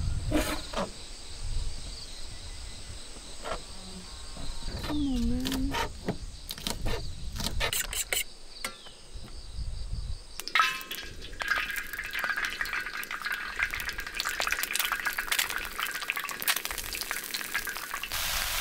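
Scattered metal clinks and knocks of cooking gear. Then, from about ten seconds in, a fork rapidly scraping and tapping against a steel pan while beating raw egg around a slice of bread.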